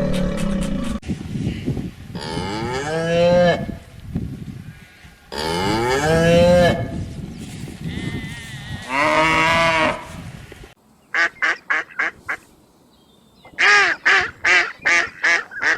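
Cattle mooing: three long, drawn-out moos, each rising and then falling in pitch. Then come two quick runs of short, sharp honking calls, about six or seven in each run.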